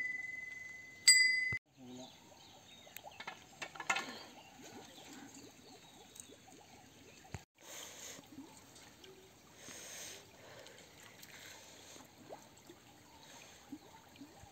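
A metal bell at a village shrine ringing with a clear high tone, struck again about a second in, then cut off short. Faint voices and quiet outdoor sound follow.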